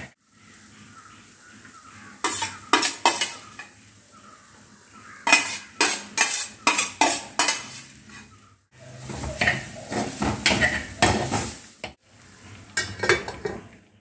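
A metal spoon stirring and scraping greens in an unglazed clay pot, in several bursts of quick scrapes and clicks, with a faint sizzle of the stir-fry between them.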